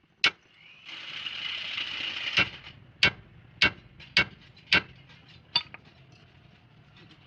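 Hammer blows on metal, seven sharp strikes roughly every half second to second with a few lighter taps after them, as a part is driven home on a truck's rear axle hub. A brief hiss fills the gap between the first and second strikes.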